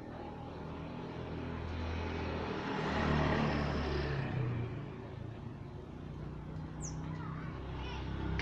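A vehicle passing: road noise swells to a peak a few seconds in, then fades. Near the end a single short, high bird note drops steeply in pitch, followed by a few faint chirps.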